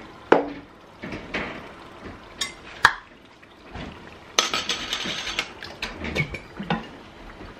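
Kitchen clatter at a stove: scattered sharp clinks and knocks of pots, lids and utensils, the loudest a little under three seconds in. About halfway through comes a second-long hissing, rustling stretch as a bottle of tomato purée is handled and emptied into a stainless steel pot.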